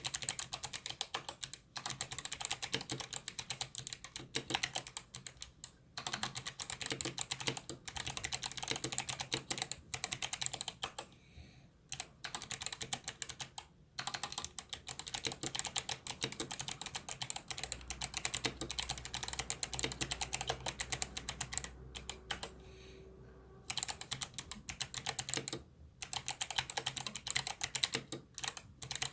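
Fast typing on a mechanical keyboard fitted with Kailh Box Jade switches, clicky switches with a click bar. The keystrokes come in quick runs of sharp clicks with a few short pauses.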